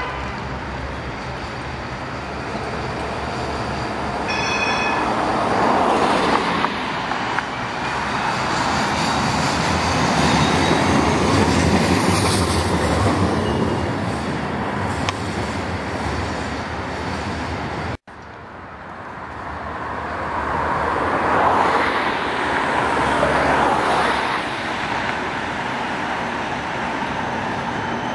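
Street traffic with trams running on their rails: a steady rumble and rail noise that swells twice as trams pass, with a brief high ring about four seconds in. The sound drops out for an instant about two-thirds of the way through.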